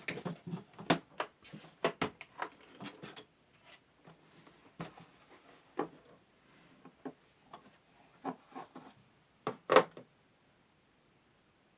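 Scattered clicks, taps and rubbing of small plastic and metal parts as a mini desk fan is worked apart with hand tools, with one louder knock near the end.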